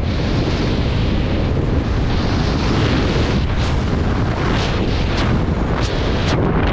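Rushing wind buffeting a head-mounted camera's microphone during a descent under an open parachute: a loud steady rumble, with a few sharper gusts around the middle and near the end.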